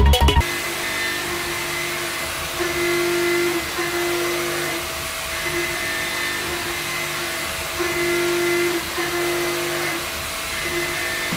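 Combimaster high-feed milling cutter roughing 42CrMo4 alloy steel on a CNC milling machine: a steady whirring hiss with a pitched hum that comes and goes in stretches of about a second as the cutter works through the cut.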